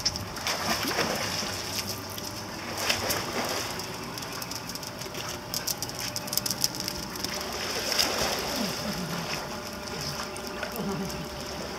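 Swimming-pool water splashing and running with a steady hiss, with a few short vocal sounds over it.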